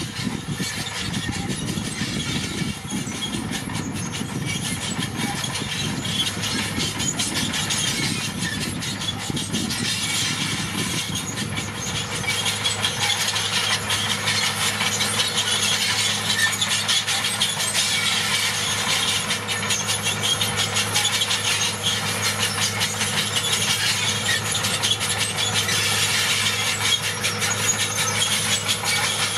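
Crawler bulldozer working: its diesel engine running steadily under a dense metallic clatter and squeal of the steel tracks. The deep rumble eases and the clatter grows louder about halfway through.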